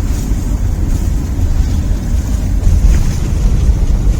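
Heavy wind buffeting the microphone, a dense low rumble, during a ride in a moving vehicle.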